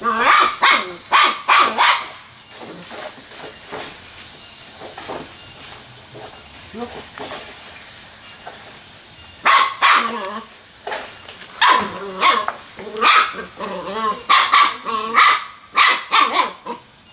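A puppy barking in quick runs of short, high yaps: a cluster at the start, then a lull, then more from about nine and a half seconds on.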